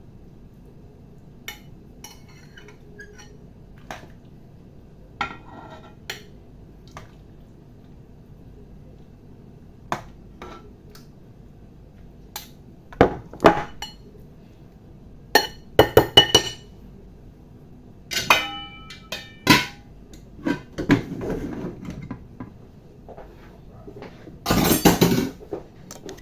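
Kitchen utensils knocking, clinking and scraping against pots and dishes as food is dished up. The knocks are scattered and sparse at first, grow busier in the second half with a few clinks that ring on, and end in a loud scrape near the end.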